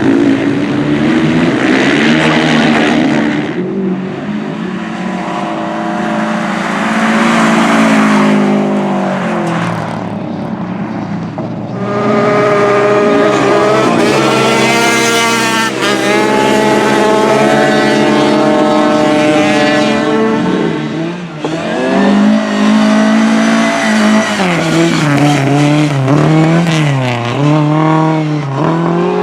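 Speedway motorcycles racing on a cinder track, their single-cylinder engines howling at high revs. The engine note rises and falls over and over as the riders open and shut the throttle through the turns.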